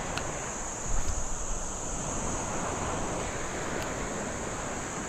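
Wind buffeting the microphone with water washing at the shore, and a steady high-pitched hiss over it.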